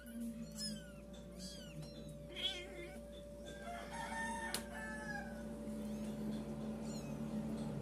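Week-old kittens mewing in repeated thin, high-pitched cries, the loudest a wavering cry about two and a half seconds in, over a steady low hum.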